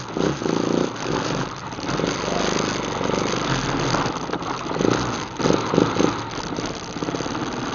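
ATV engine running on a trail ride, its revs rising and falling with a few louder surges of throttle about two-thirds of the way through.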